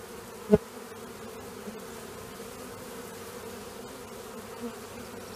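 A swarm of honeybees buzzing in a steady hum as they crowd into a swarm box, with a brief sharp blip about half a second in.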